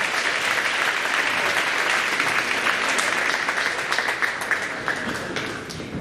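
Audience applauding, dense and steady at first, then thinning out to a few scattered claps near the end.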